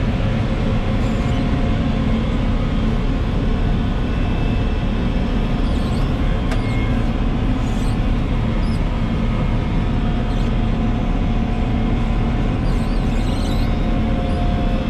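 Heavy diesel farm machinery running steadily at constant speed: an even engine drone with steady tones above it, plus a few faint ticks.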